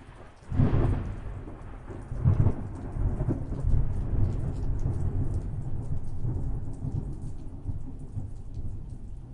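Thunder: a sudden crack about half a second in, a second clap about two seconds later, then a long low rumble slowly dying away, with rain falling throughout.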